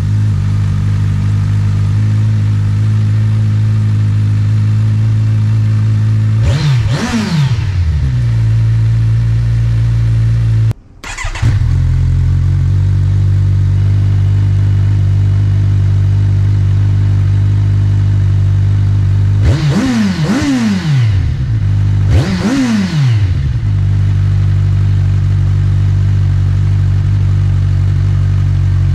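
Kawasaki Ninja 1000SX's inline-four engine, running through a Black Widow slip-on silencer with its baffle fitted, idling steadily just after its first start on the new exhaust. It is blipped up and back down once about six seconds in and twice more around twenty seconds in, and cuts out briefly about eleven seconds in.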